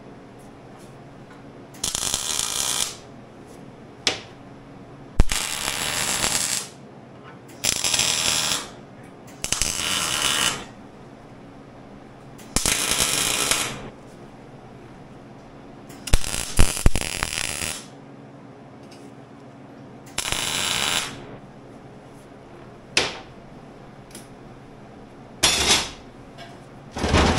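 Arc welder laying a series of tack welds: about eight bursts of arc noise, each a second or so long, with pauses of a few seconds between and a few short clicks.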